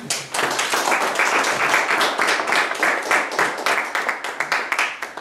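Audience applauding: a dense run of handclaps that starts suddenly and stops about five seconds later.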